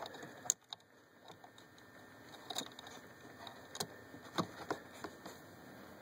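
Faint scattered clicks and taps of a small blade fuse being pushed back into its slot in a plastic fuse box and fingers handling the fuse panel, the sharpest click about half a second in.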